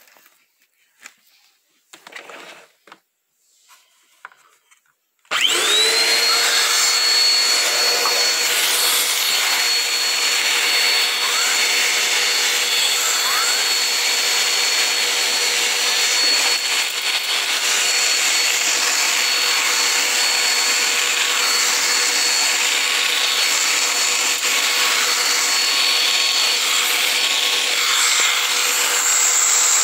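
Black & Decker upright vacuum cleaner switching on about five seconds in after a few faint rustles, its motor spinning up quickly to a steady high whine. It then runs continuously, drawing air through the turbo brush attachment on the hose as it is worked over bedding fabric.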